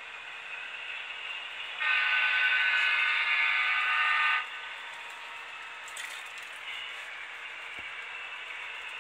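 HO scale diesel locomotive's sound-decoder horn: one long blast of about two and a half seconds, starting about two seconds in.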